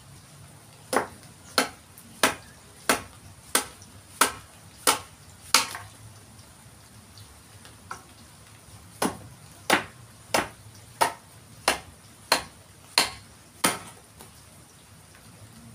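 A mallet striking the back of a steel blade to drive it into a forest red gum (eucalyptus) log, splitting away wood to shape a didgeridoo. Two steady runs of about eight sharp, slightly ringing knocks, roughly one and a half a second, with a short pause between the runs.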